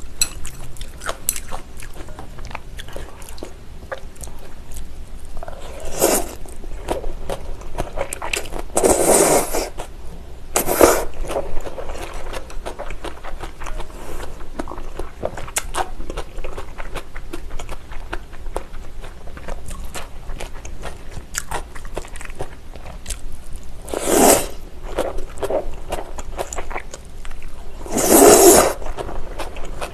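Close-miked eating of agar-jelly noodles in cold broth: about five loud slurps, one just before the end, with chewing and small clicks of chopsticks against a glass bowl in between.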